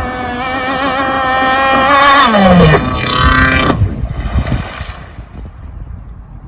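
RC hydroplane boat's motor running flat out, getting louder as it comes closer. About two seconds in its pitch drops sharply as the boat flips, then a brief high-pitched rev before it cuts out suddenly just before four seconds. A wash of splash noise follows as it crashes.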